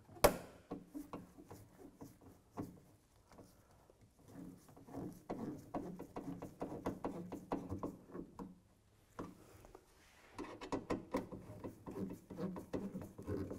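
Phillips screwdriver snugging down the screws that hold a plastic hood bug shield to the hood, heard as runs of small clicks and rubbing, with one sharp click just after the start.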